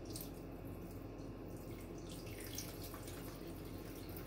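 Kitchen tap running steadily into the sink, with a few faint clinks.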